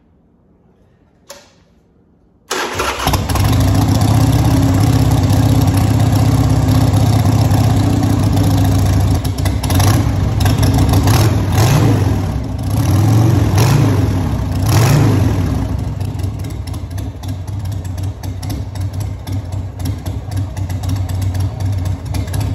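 Harley-Davidson Sportster 1200's V-twin on its stock exhaust: a click about a second in, then it starts about two and a half seconds in and runs loud in a closed garage. It is revved a few times in the middle, then settles back to idle.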